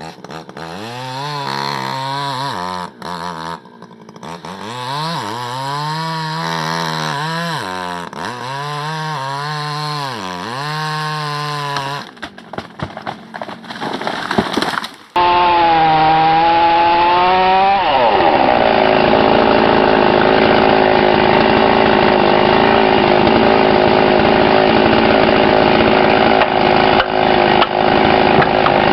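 Two-stroke chainsaw revved up and down over and over. About halfway through the sound switches abruptly to a chainsaw held at steady full throttle, cutting wood.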